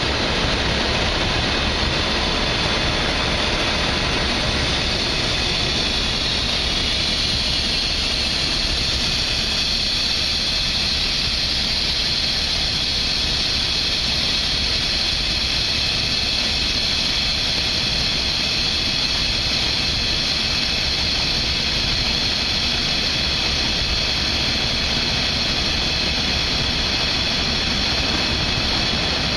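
Grain pouring from a hopper-bottom trailer's open gates onto a belt unloader's grate: a steady hiss, a little stronger after several seconds, over the low, steady rumble of the conveyor machinery.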